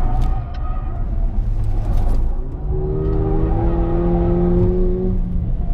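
Mercedes-AMG A45's turbocharged 2.0-litre four-cylinder engine heard from inside the cabin under hard track driving. The level dips briefly about half a second in and again about two and a half seconds in, then the engine pulls with a steady, slowly rising tone.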